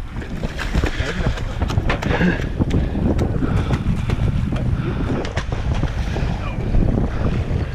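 Wind buffeting the microphone in a steady low rumble, with many small clicks and knocks of handling, and faint voices in the background.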